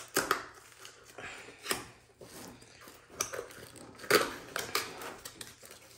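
A long, shrink-wrapped cardboard box being handled and moved on a wooden tabletop: scattered knocks, taps and scraping with some rustle, the loudest knock a little past the middle.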